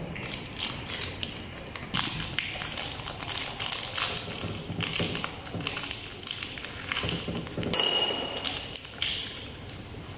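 Light tapping and clicking of small objects being handled, with a brief high ping about eight seconds in.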